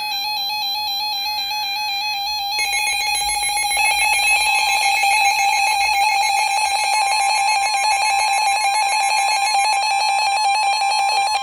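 Emergency Alert System attention signal: a loud, steady electronic alarm tone played through a speaker, announcing an incoming severe thunderstorm warning. More tones join about two and a half seconds in and it gets louder a second later.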